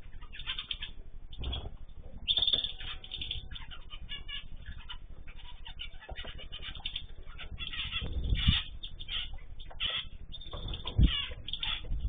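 Small cage birds such as canaries and zebra finches chirping in an aviary, a steady chatter of many short calls. Two low thumps come about eight and eleven seconds in.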